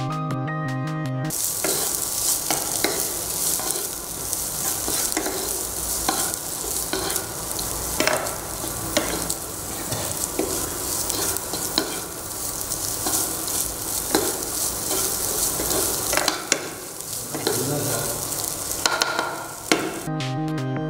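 Chopped onions and green chillies frying in oil in a nonstick pan, sizzling while a wooden spatula stirs and scrapes them, with frequent sharp clicks of the spatula on the pan. Background music plays for about the first second and returns near the end.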